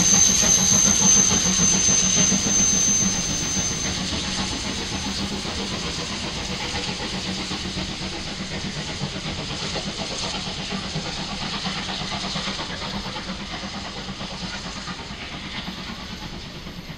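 Class 01.10 three-cylinder express steam locomotive 01 1066 hissing steam as it moves slowly off with a coach, the sound fading steadily as it draws away. A thin high steam hiss stops about four seconds in.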